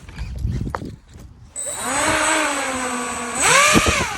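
The electric fan motor of a Pro Boat AeroTrooper RC airboat spinning up on a throttle test: a whirring motor-and-propeller tone with a thin high whine above it, surging higher about three and a half seconds in and then falling back. A few low knocks come before it starts.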